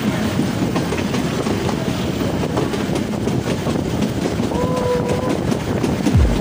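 Narrow-gauge toy train running, heard from aboard: a steady rumble with the wheels clicking over the rail joints, and a brief horn note about five seconds in.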